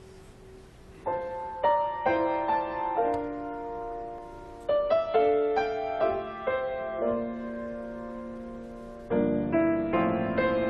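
Piano playing a slow, gentle introduction to a sacred song, notes struck and left to ring away. It starts about a second in, after faint room tone.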